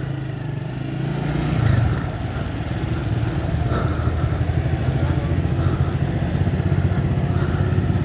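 Vehicle engine running steadily while travelling along a road, a low hum with a fast, even pulse that swells slightly about two seconds in.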